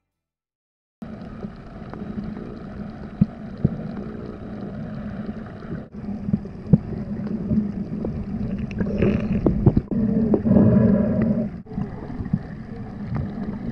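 Boat engine humming steadily on the water, with splashing and occasional knocks. It starts about a second in.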